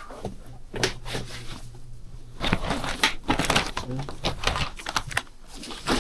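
A plastic bag crinkling and rustling as it is handled by hand, with scattered knocks; the crackling is densest from about two and a half seconds in. A low hum sounds briefly in the first half.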